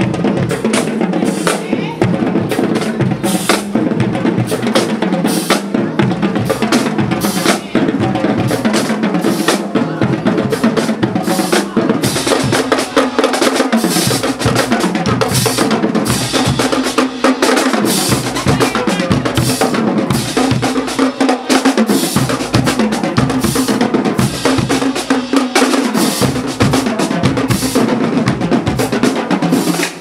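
High school marching band drumline playing a driving cadence on snare and bass drums, loud and continuous.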